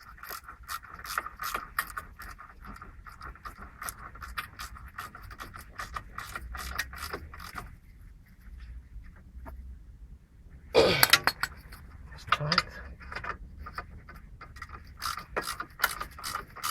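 Ratchet wrench clicking in runs as the bolts on the driveshaft's inner CV joint flange are tightened, with metal tool scrapes. A louder metallic clatter comes about eleven seconds in.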